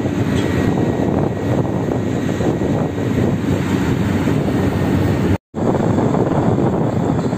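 Heavy construction machinery's diesel engines running with a steady, dense rumble, breaking off for a moment about five and a half seconds in.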